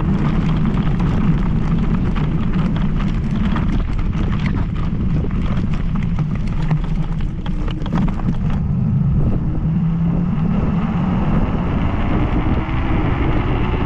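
Riding noise on an MS Energy X10 electric scooter: wind rushing over the microphone, with frequent knocks and rattles that thin out about eight and a half seconds in.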